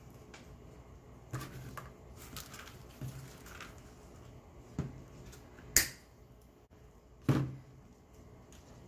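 Artificial wispy greenery stems being pulled apart and handled on a tabletop: light rustling and scattered small clicks, with two sharper knocks about a second and a half apart past the middle.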